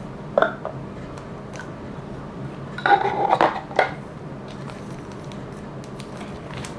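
Hard plastic items being handled and set down: scattered light clicks, then a short cluster of louder clacks and clinks about three seconds in.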